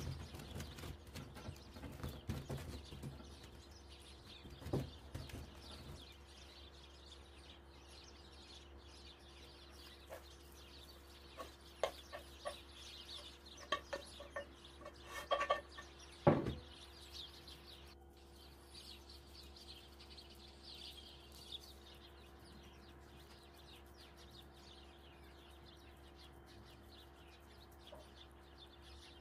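Hands pressing and patting rolled dough in an aluminium baking tray, then filling spooned onto it and spread, with soft taps and scrapes and one louder knock a little past halfway. Faint bird calls and a steady low hum underneath.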